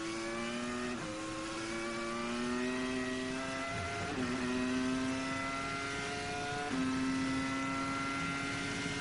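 Formula One car's 3-litre V10 at high revs under full throttle, heard from the car's onboard camera, with three quick upshifts about 1, 4 and just under 7 seconds in. Each shift drops the pitch before it climbs again, and each climb is slower than the last, nearly level in the top gear.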